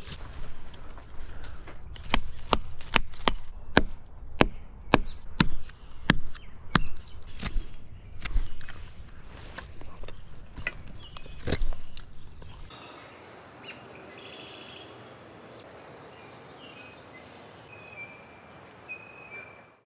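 Hatchet strikes: a run of sharp, irregular knocks, one or two a second, for about twelve seconds. Then they stop and small birds chirp over a steady hiss.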